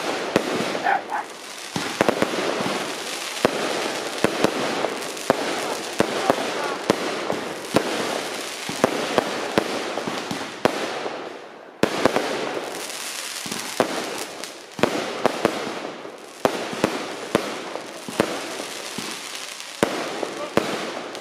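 Fireworks display: many sharp bangs of bursting shells over continuous crackling and hiss from crackling stars, with a brief lull a little past the middle before the bangs resume.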